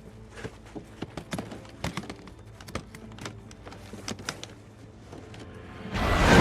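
A run of irregular sharp clicks and knocks. Near the end a loud helicopter sound comes in abruptly, with a fast chopping beat.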